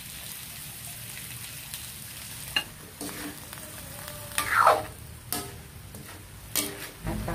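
Pinakbet vegetables (squash, long beans, eggplant) sizzling in a metal wok while a metal ladle stirs them. The ladle clinks against the wok several times, and about four and a half seconds in it scrapes along the pan with a falling pitch, the loudest sound.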